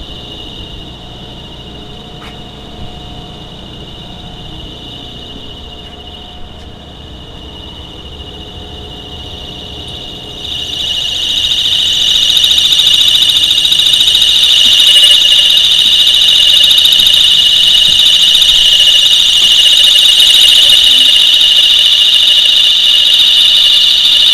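A building's electronic alarm sounds a continuous high-pitched tone. It is faint at first, over a low hum, then becomes much louder about ten seconds in and stays loud.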